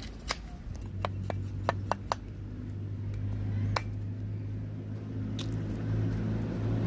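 Cleaver blade cutting and paring fresh bamboo shoots: a quick run of sharp cuts in the first two seconds, then two more spaced out. A low steady hum sets in underneath about a second in and grows louder toward the end.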